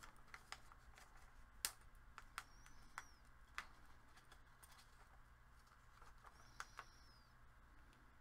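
Quiet handling of paper pieces and small embellishments over a plastic-covered craft mat: scattered light clicks and taps, the sharpest about one and a half seconds in. Two faint, short, high chirps sound in the background, one a third of the way in and one near the end.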